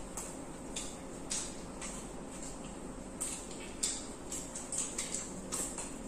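Eating noises: irregular small clicks and smacks of chewing, with the crinkle of the egg rolls' paper wrappers being handled, over a faint steady hum.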